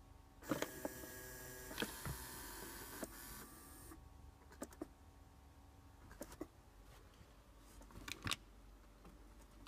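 Small electric flap positioning motors on an Audi A6 Climatronic heater box whirring for about three seconds as the VAG-COM flap alignment drives the flaps through their travel. Then the motor stops, followed by a few sharp clicks, several close together near the end.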